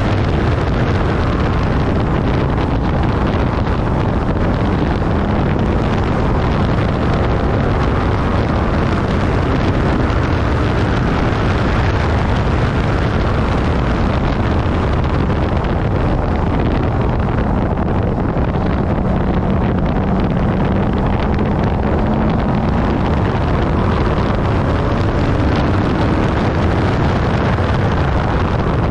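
Infiniti G37S's 3.7-litre V6 running on the move under heavy wind and road rumble buffeting the camera's microphone, a steady loud din. A faint engine note climbs in pitch a couple of times in the second half.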